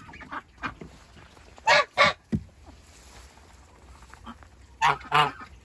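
Domestic goose honking: two quick pairs of loud honks, about three seconds apart.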